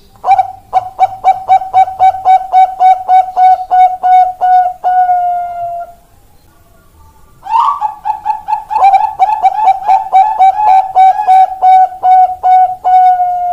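Perkutut bangkok (a Thai-bred zebra dove) cooing. There are two long runs of quick, even staccato coos, about four a second, each ending in a longer drawn-out note, with a pause of about a second and a half between them.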